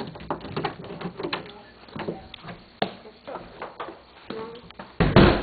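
A door's round metal knob turned and the door opened, with a run of clicks and knocks from the latch and door. There is a loud thump near the end.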